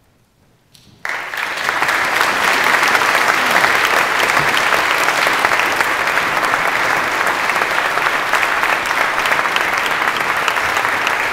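About a second of quiet, then an audience suddenly breaks into sustained clapping that holds steady.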